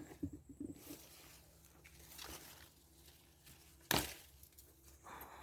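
Quince tree leaves and branches rustling as the fruit is picked by hand, with small ticks and one sharp knock about four seconds in.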